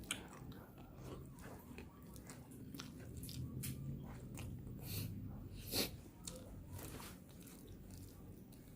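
Close-miked chewing of hard, crunchy food: moist chewing with a run of sharp crunches and crackles, the loudest crunch near the six-second mark.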